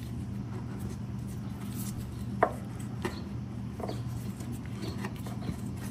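A few light clicks and taps of an O2 sensor wire being handled and fed up through a hole in a car's floor pan, the sharpest about halfway through, over a steady low hum.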